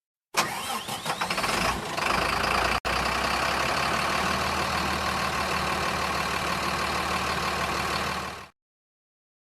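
Vehicle engine sound effect: an engine cranks and catches with an uneven sputter, then settles into a steady idle. There is a brief break just before three seconds in, and the sound cuts off abruptly about a second before the end.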